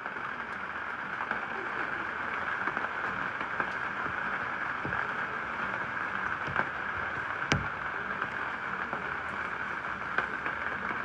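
Steady rain falling, an even hiss with scattered small drop ticks and one sharper tick about two-thirds of the way through.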